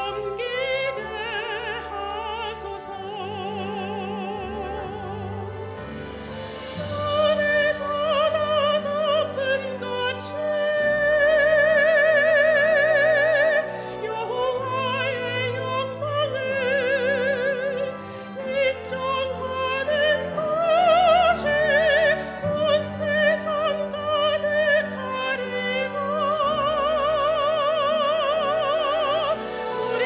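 A solo soprano sings a sacred song in classical style with wide vibrato over instrumental accompaniment. She holds long notes, and the song swells loudest about 11 to 13 seconds in.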